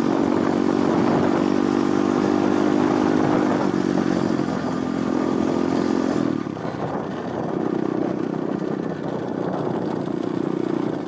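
Pit bike engine running under way while being ridden, its note holding steady, easing off about six seconds in, then picking up again.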